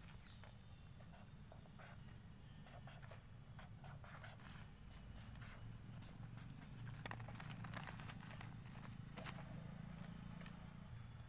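Pen writing on paper: a run of short, faint scratchy strokes as boxes and arrows are drawn, over a low steady hum.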